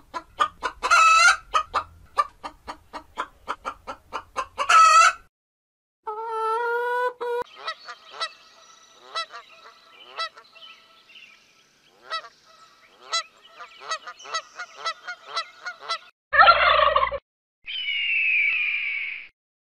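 Chickens clucking rapidly, with two louder squawks, then a goose honking and chattering in short calls, and near the end a raptor's long screams sliding downward in pitch.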